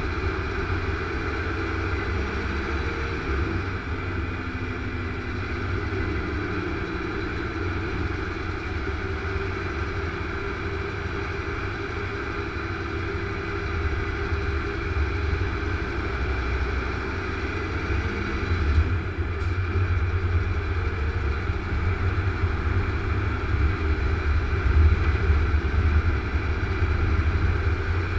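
Heavy truck driving at motorway speed, heard from inside the cab: a steady low engine drone with tyre and road noise, growing a little louder in the second half.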